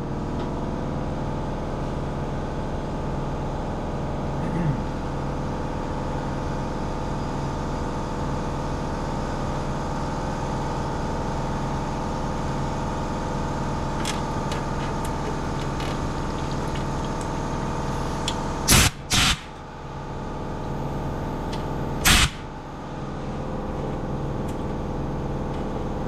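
A steady mechanical hum runs throughout. About three-quarters of the way through come two short, loud blasts of compressed air close together, then a third a few seconds later: air blown back through the clogged fuel screen to clear debris and fuel out of the tank.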